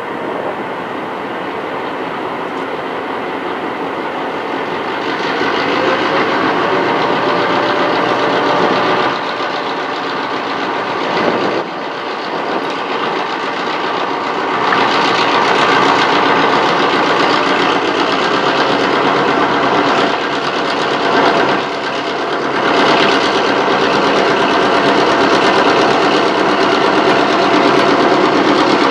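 Four Clyde EMD 49 class diesel-electric locomotives hauling a grain train, running under power as they pass, with their EMD eight-cylinder diesel engines droning and wheels running on the rail. The sound grows louder about five seconds in and again about halfway through as the lead units come alongside, then stays loud.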